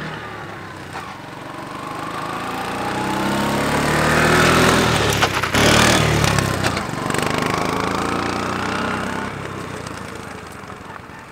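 Vespa PX scooter riding past on a gravel road. Its engine grows louder as it approaches, peaks with a rush of tyre crunch on gravel as it passes close by about halfway through, then drops in pitch and fades as it rides away.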